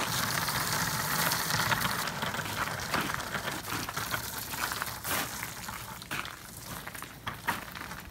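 Small wheels of hand-truck dollies carrying harps in padded cases rolling over snow-covered pavement, together with footsteps in snow: a continuous crunching, crackling scrape with many small clicks, fading somewhat after about six seconds.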